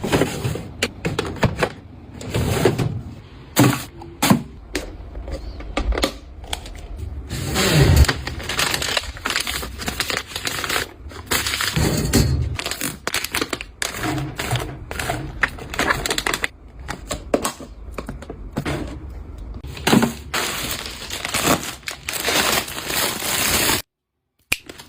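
Close-miked handling of packaging and containers: crackling and crinkling, rustling, and many light clicks and knocks, dropping to silence for a moment near the end.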